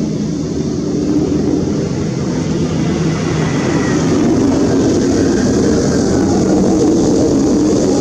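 Mirage 2000-5 fighter's single M53 turbofan running loud and steady as the jet flies away, with a faint falling whine about halfway through.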